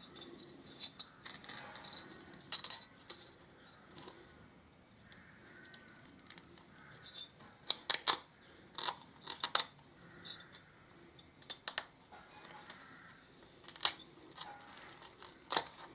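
A metal pick scraping and clicking in a motorcycle exhaust port as an old exhaust gasket is dug out: irregular sharp metallic clicks and short scrapes, coming in small clusters with quieter gaps between.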